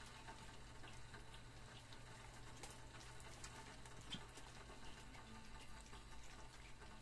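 Faint wet smacking and scattered small clicks of a mother dog and her puppies eating rice from a shared pan.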